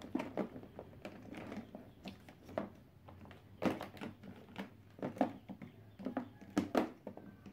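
Hard plastic action figures clacking against each other and against the bottom of a plastic storage bin as they are picked up, set down and stood in a row. The sound is a string of light, irregular clicks and knocks.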